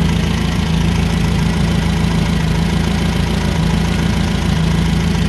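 Nissan K21 four-cylinder forklift engine idling steadily and running rough with a single-cylinder misfire, which the mechanic traces to a shorted primary winding in the number 1 ignition coil.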